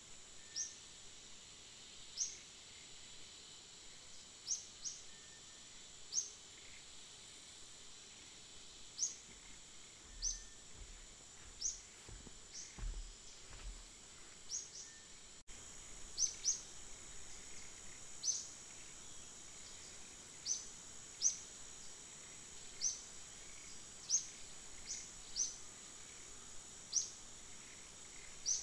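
Outdoor forest ambience: a steady high-pitched insect drone, with a short, high chirp repeating about every second or so.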